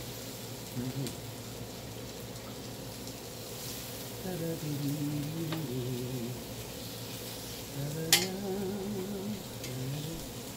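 Barbecue chicken thighs sizzling on a hot electric indoor contact grill as metal tongs lift them off, with one sharp clack of the tongs about eight seconds in.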